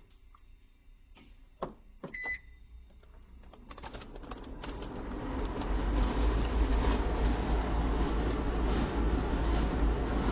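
A few clicks and a short beep from a TaoTronics HEPA air purifier's controls, then its fan starting up and rising over about two seconds to a steady rush of air.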